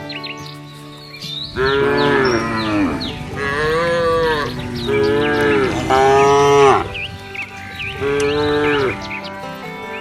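Domestic cattle mooing: five loud calls of about a second each, the first four close together and the last after a short gap, over background music with bird-like chirps.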